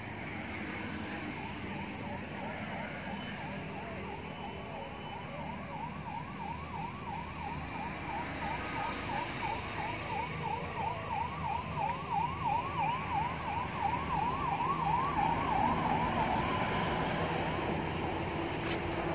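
A vehicle siren sweeping up and down fast, about three times a second, growing louder for most of its length and fading out near the end, over the low running of traffic.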